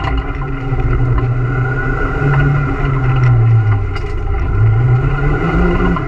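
Renault Super 5 GT Turbo's 1.4-litre turbocharged four-cylinder engine at full effort, heard from inside the bare racing cabin. Its pitch climbs and drops several times as the driver changes gear.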